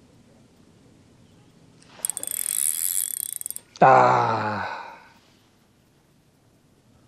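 Fishing reel cranked for about a second and a half, giving a fast whirring rattle of its gears. It is followed by a louder, falling hum that fades over about a second as the rod is swung into a cast.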